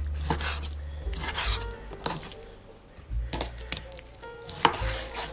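Chef's knife cutting raw chicken breast into strips on a wooden cutting board, the blade knocking on the board with each cut: about half a dozen unevenly spaced cuts.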